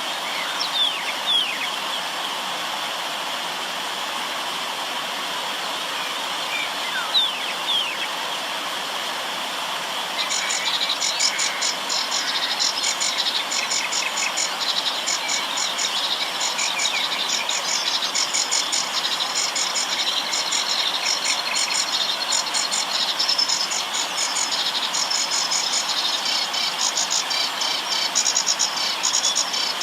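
River water flowing steadily, with a few short descending bird calls in the first seconds and again about seven seconds in. From about ten seconds in, a high, rapidly pulsing trill sets in and keeps going over the water.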